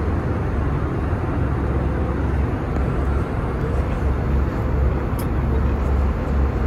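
Steady cabin noise inside an Airbus A320neo in flight: an even rush of engine and airflow noise with a deep rumble underneath.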